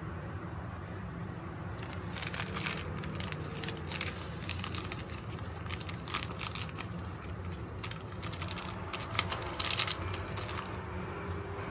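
A foil-laminated seasoning sachet crinkling and rustling as it is handled and squeezed empty by hand. The crackly rustles start about two seconds in and are loudest shortly before they stop near the end.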